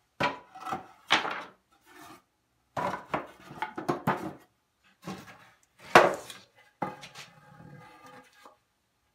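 Wooden boards knocking and scraping against each other and against the wooden rack as they are sorted and pulled out, with one sharp clack about six seconds in.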